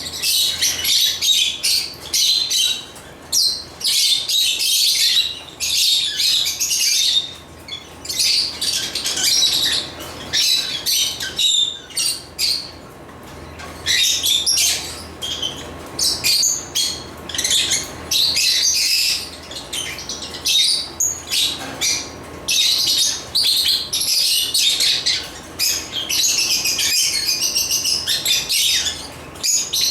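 African lovebirds (Agapornis) chirping rapidly and shrilly in dense runs, broken by a few short lulls.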